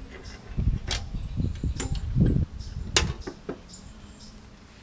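A few sharp clicks and knocks from hands and parts working on a lawnmower's small engine, over an irregular low rumble in the first half.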